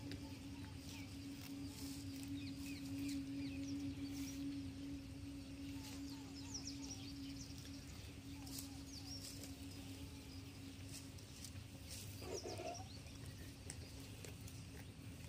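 Outdoor ambience of many small birds chirping, over a steady low hum, with one brief louder animal call about twelve seconds in.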